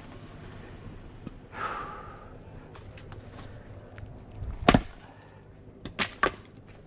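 A sharp breath out, then one heavy axe blow into a log of firewood, the loudest sound here, followed about a second and a half later by two sharper knocks in quick succession.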